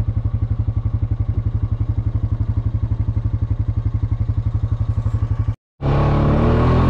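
Quad bike engine running slowly with an even, rapid putter. About five and a half seconds in the sound breaks off for an instant, then the engine comes back smoother and a little louder.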